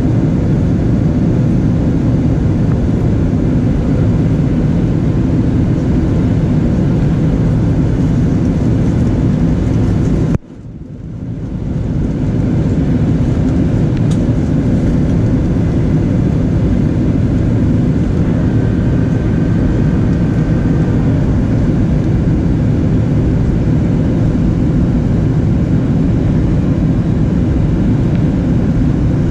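Steady cabin noise of a Boeing 737-800 in flight, from its CFM56 engines and the airflow, heard from a window seat. It cuts out suddenly about ten seconds in and fades back up over a second or two.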